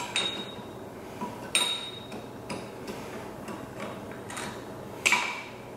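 Steel transfer-case shaft and gear parts clinking together as they are handled: a few sharp metallic clinks, each with a short ring, the loudest about five seconds in.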